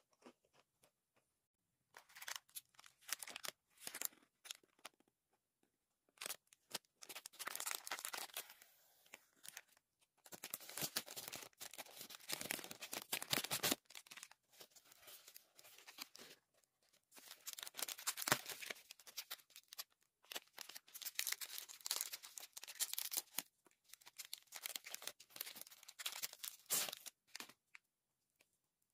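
Nutella B-ready snack wrappers being torn open and crinkled by hand, in repeated bursts of rustling and tearing with short pauses between them.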